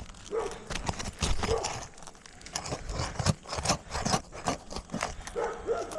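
Hand tools scraping and clicking against asphalt roof shingles in short, irregular strokes as roofing nails are pried out from under them.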